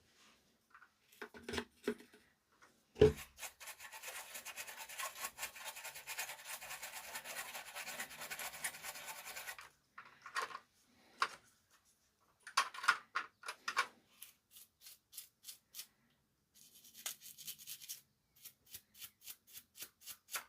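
Hand work on a disassembled amplifier's parts: a sharp knock, then several seconds of fast scrubbing, followed by scattered clicks, a second short burst of scrubbing, and a run of evenly spaced light clicks near the end.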